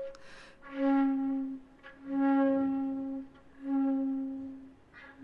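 Background music: four long, slow held notes on the same pitch, each about a second long with short gaps between them.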